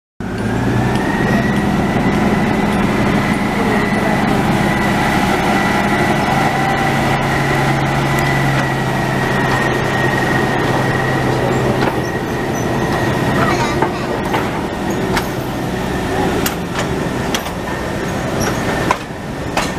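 Narrow-gauge Mk48 diesel locomotive running, its engine giving a steady low drone and a steady high whine. From about thirteen seconds in, wheel clicks over the rail joints join in as the train rolls along the track.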